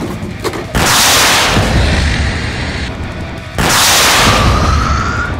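Two loud blast sound effects, like explosions or heavy gunshots, about three seconds apart, each dying away over a second or so, over background music. Two short clicks come just before the first blast.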